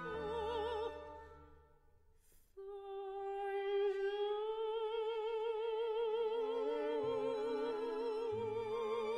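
Mezzo-soprano with orchestra: a sung note with vibrato dies away into a short near-silent pause. About two and a half seconds in, a long held note with steady vibrato begins, and soft low orchestral notes join beneath it.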